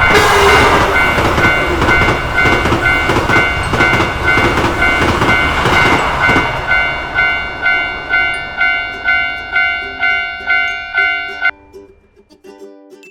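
A Japanese level-crossing warning bell clanging steadily, about two strikes a second, while a train rushes past with rattling wheel clatter over bumpy track. The train noise dies away, and the bell stops suddenly near the end.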